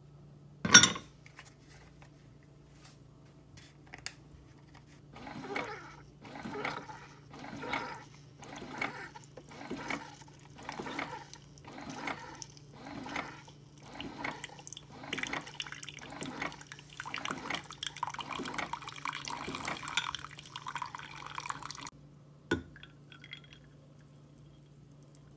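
Coffee machine dispensing coffee onto ice cubes in a glass mug. The liquid splashes and trickles in pulses about once a second, which come faster and run together into a steadier pour later on. There is a sharp click about a second in and another near the end.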